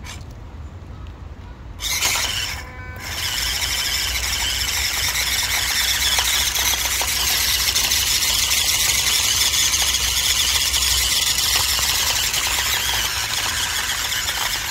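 Small 180 brushed motor and gearbox of a WPL C24-1 1/16-scale RC crawler whining under throttle. A short burst about two seconds in, a brief cut, then a long steady whine as the truck strains to climb over a log.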